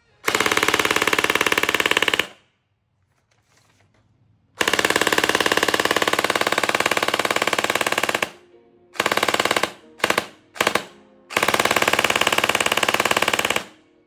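Six bursts of rapid automatic fire, each a dense run of shots: a burst of about two seconds, a long one of nearly four seconds, three short quick bursts, and a final burst of about two seconds.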